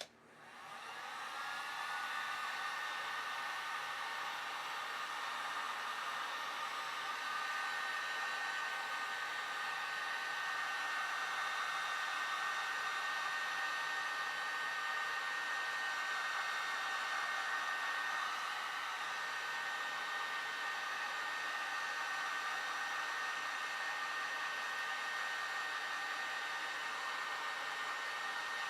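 Small electric motor with a fan spinning up about a second in, then running steadily with a high whine over rushing air, like a hair dryer or heat gun.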